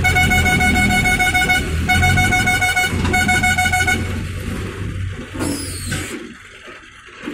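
Diesel engine of a pick-and-carry (Hydra) mobile crane running, with a high, rapidly pulsing warning horn sounding in three bursts over the first four seconds. A short falling whistle follows, and the engine noise drops away about six seconds in.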